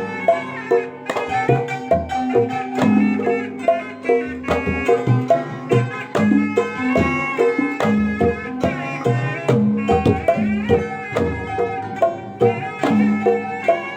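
Sundanese-style traditional music: a fast hand-drum pattern under a pitched melody line that slides between notes, played continuously.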